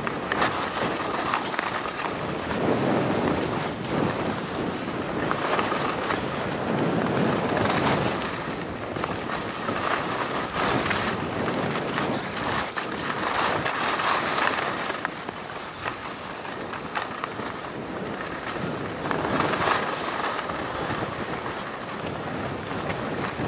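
Skis sliding and carving through soft snow in a series of turns, the swish swelling and fading every few seconds, with wind rushing on the microphone.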